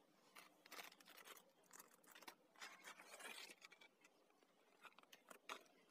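Paper courier mailer being torn open and crumpled by hand: faint irregular crinkling and rustling in bursts, easing off after about three and a half seconds, with two sharper rustles near the end.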